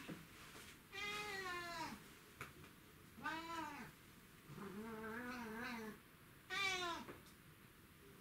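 A domestic cat meowing four times. The third call is longer, lower and wavering, and the last, short one is the loudest.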